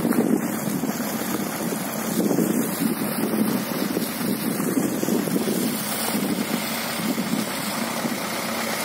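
Wind buffeting the microphone in gusts, over the steady running of an LS Plus 100 tractor's engine.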